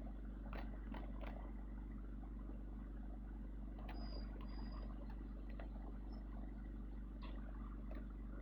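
A vehicle running with a steady low drone, as heard inside a van on the move, with scattered light clicks and two short high beeps about four seconds in.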